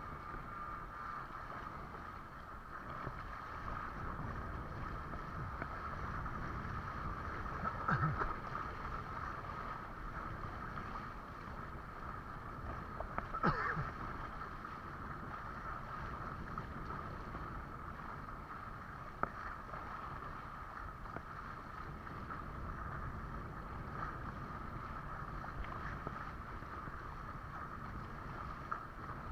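Wind buffeting the microphone and water rushing past a windsurf board under way. Two short bangs come about five seconds apart, near the middle.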